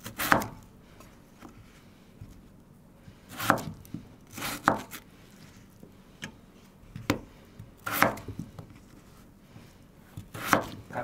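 Chef's knife cutting through peeled raw potatoes and knocking on a bamboo cutting board: about six sharp chops, irregularly spaced, with light clicks of the pieces being moved between them.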